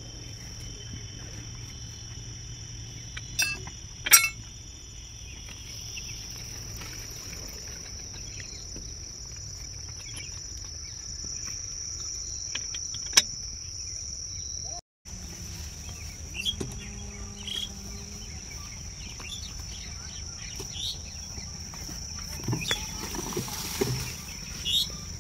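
Insects shrilling in one steady, unbroken high tone, with a few sharp knocks and clicks, the loudest about four seconds in and a cluster near the end.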